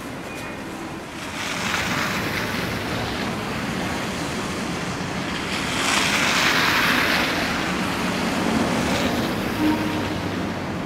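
Street traffic: tyres hissing on a wet, slushy road as vehicles pass. The hiss swells about a second and a half in and again around the middle.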